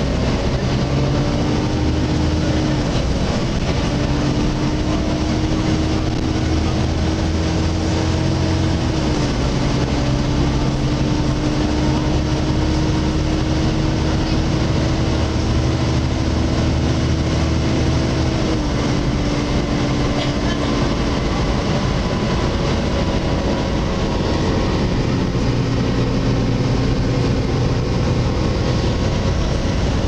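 Volvo B7TL double-decker bus on the move, heard from the upper deck: its six-cylinder diesel running under a loud, steady whine from the engine cooling fan, the sound known as the 'hoover'. The whine holds one pitch, shifting slightly up or down a few times as the bus changes speed.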